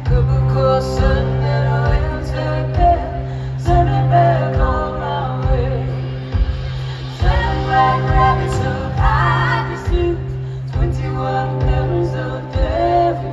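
Live band music from a concert stage, with a singer's sung phrases over a steady low sustained bass note.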